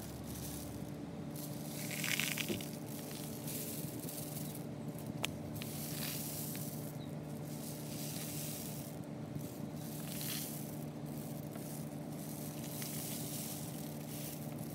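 Homemade cardboard-tube rainstick being tipped, its filling trickling down inside with a rain-like hiss that swells and fades in several waves as it is turned. A steady low hum runs underneath.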